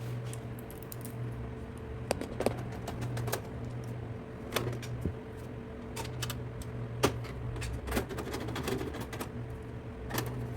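Screws being driven in by hand to fasten an ATX power supply into a metal computer case: irregular small clicks and metallic ticks from the screwdriver and screws, over a steady low hum.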